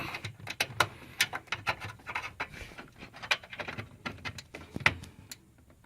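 Irregular clicks, knocks and light rattles of a computer keyboard, mouse and their cables being handled and moved, with one sharper knock near the end.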